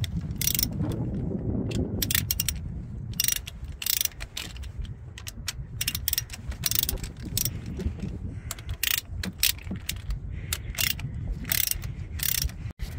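Socket ratchet clicking in quick runs as the rocker assembly bolts are worked loose a little at a time, with wind rumbling on the microphone.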